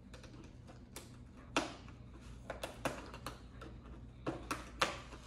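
Scissors snipping the clear plastic strings that hold toy robots in their packaging: a series of sharp, irregular snips and clicks, several in quick succession.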